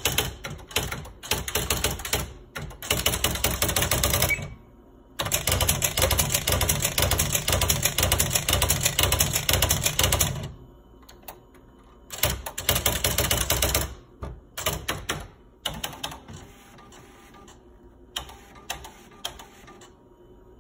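Smith Corona SL575 electronic typewriter typing a message: runs of rapid, even print strikes, the longest lasting about five seconds, broken by short pauses, with scattered single strikes near the end.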